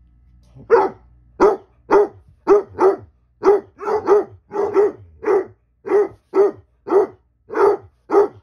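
Basset hound barking over and over, about two barks a second, starting just under a second in and going on steadily.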